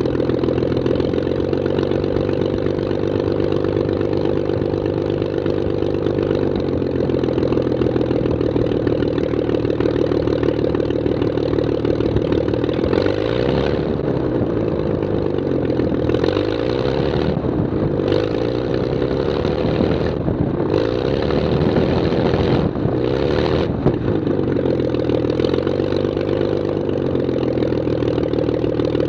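Zlin Z-326 Trener Master's Walter Minor six-cylinder inline engine and propeller running at low power while the aircraft taxis on grass. The engine note is steady at first, then wavers up and down in pitch through the middle before settling again, with a hiss of air over the microphone.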